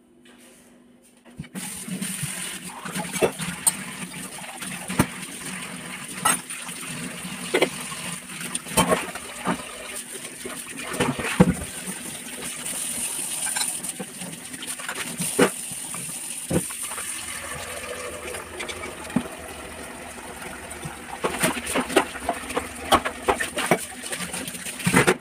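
Tap water running into a stainless steel kitchen sink while steel utensils are washed, starting about a second and a half in. Frequent clanks and knocks of steel pots and dishes against each other and the sink.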